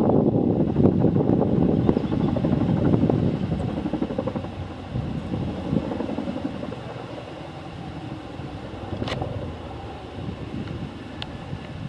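Chinook tandem-rotor helicopter flying past, its two rotors beating rapidly. The sound is loudest at first and fades over the first few seconds as it moves away.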